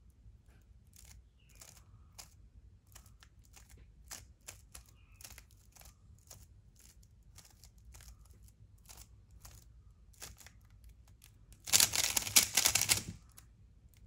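Plastic stickerless 3x3 speed cube being turned by hand through the F-perm algorithm: scattered light clicks as single layers are turned. Near the end comes a loud, rapid clatter of fast turns lasting about a second and a half.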